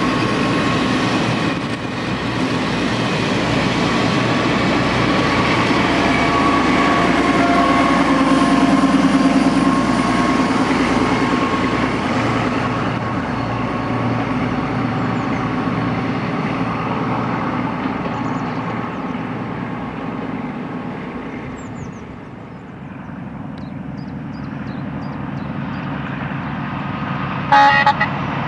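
Diesel railcar hauling a train of passenger coaches, its engine running and the coach wheels rolling along the track. The sound eases off about two-thirds of the way through, then builds again, with a brief sharp clack near the end.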